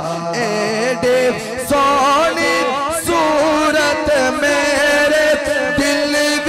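A man singing a naat (devotional praise poem) into a microphone, drawing out long ornamented notes whose pitch wavers and slides, amplified through a PA system.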